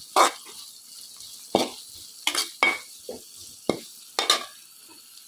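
Green bird's-eye chillies, garlic, ginger and curry leaves sizzling in hot sesame oil, with a steady hiss, while a steel spoon stirs and scrapes the pan in a series of sharp strokes. This is the sautéing stage of the tempering for a lime pickle.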